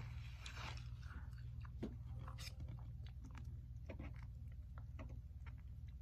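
Close-up chewing and mouth smacks of a person eating, with scattered short clicks; a steady low hum runs underneath.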